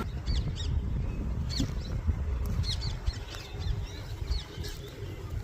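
Small birds chirping in short, high calls, scattered throughout, over a steady low rumble.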